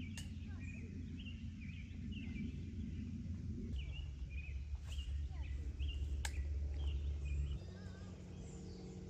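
Birds chirping, many short repeated notes, over a steady low rumble that grows louder about four seconds in and drops back near the end, with a few sharp clicks.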